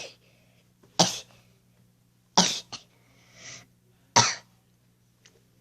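A child sneezing three times in quick succession, sharp short bursts about one and a half to two seconds apart, set off by tickling the inside of the nose with a cotton swab.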